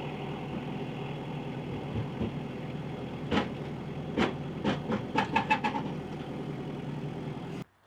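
8V92 two-stroke Detroit V8 diesel being cranked over on the starter. A string of sharp pops comes partway through as it tries to fire, and the cranking stops suddenly near the end.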